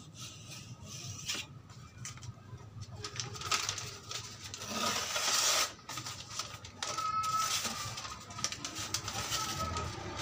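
Paper pages rustling and being sliced by a sharpened steel blade made from a hand-saw, in a series of short swishes with the longest about halfway through. A bird chirps faintly in the background in the second half.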